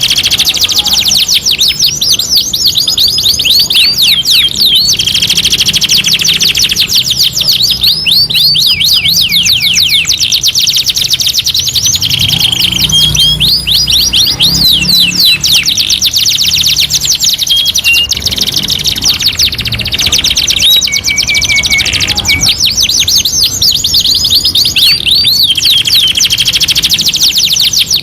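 Two domestic canaries singing without a break: fast rolling trills and rapid sweeping chirps, broken by short held whistles.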